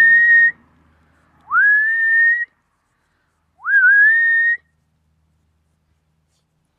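A person whistling three times, each whistle sliding up and then held on one note for about a second.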